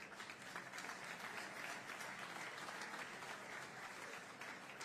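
A large audience applauding, building over the first couple of seconds and tailing off near the end.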